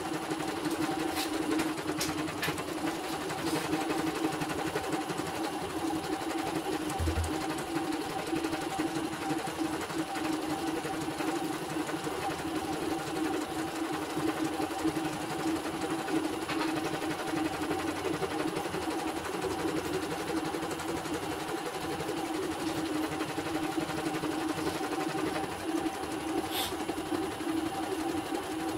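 CNY portable computerised embroidery machine stitching a design, its needle running at a steady fast rate with an even mechanical hum and rapid ticking. It runs without trouble on a test after servicing.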